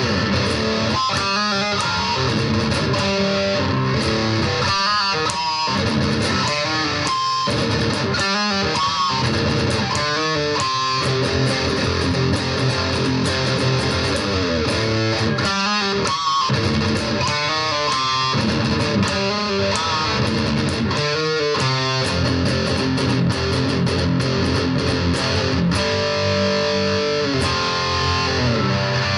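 BC Rich Virgin VG1 electric guitar played through the distortion channel of a Roland Cube Lite practice amp: continuous distorted riffs with fast runs of notes here and there.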